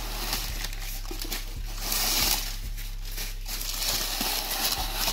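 Brown kraft packing paper rustling and crinkling as it is handled and pulled out of a cardboard box, loudest about two seconds in. A steady low electrical hum runs underneath.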